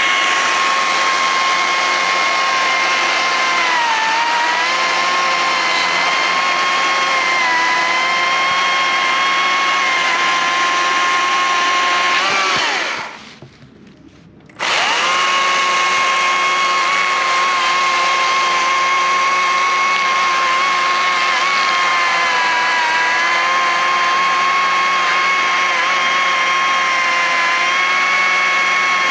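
Stihl MSA 140 C battery chainsaw cutting through solid 8-inch ash: a steady electric-motor whine that sags a little now and then as the chain bites. It winds down and stops about twelve seconds in, then starts again about two seconds later for a second cut.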